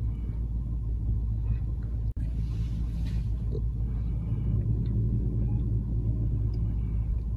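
Car engine running, heard from inside the cabin as a steady low rumble.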